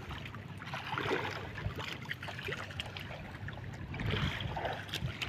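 A fishing boat's engine running steadily, with water noise around the hull.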